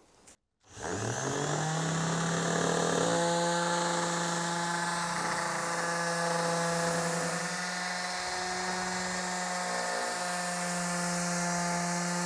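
Electric orbital finishing sander starting up, its motor pitch rising over about a second, then running steadily as its pad sands across a wooden door panel.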